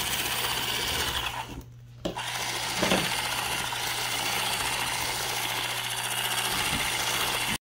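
Handheld electric whisk running steadily, beating flour into a batter of egg whites, sugar and melted butter in a stainless steel bowl. The motor drops out briefly about a second and a half in, then starts again, and the sound cuts off suddenly near the end.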